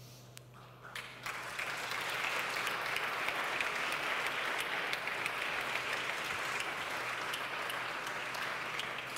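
Audience applauding, the clapping swelling about a second in and dying down near the end.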